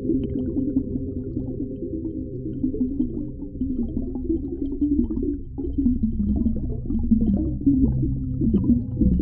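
Deep underwater ambience: a low rumble with wavering, gliding low tones and faint scattered clicks, swelling somewhat in the second half.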